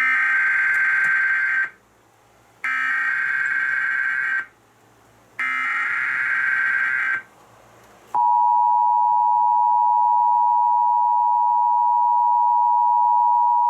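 Emergency Alert System broadcast opening. Three bursts of buzzing digital SAME header data, each under two seconds with about a second between them. About eight seconds in comes the steady two-tone EAS attention signal, which marks the start of an emergency alert.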